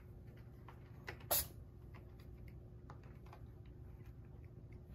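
Scattered small clicks and crackles from cats licking and nosing at catnip on a corrugated cardboard scratcher, with one louder sharp crackle a little over a second in.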